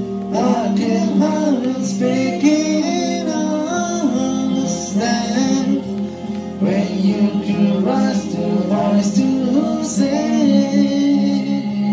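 A man singing a melody into a microphone over a steady backing accompaniment of sustained chords.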